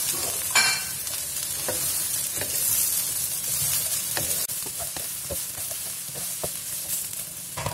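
Fried tempeh cubes and sliced green chillies sizzling in oil in a wok while a wooden spatula stirs them, scraping and knocking against the pan, with one sharper knock about half a second in.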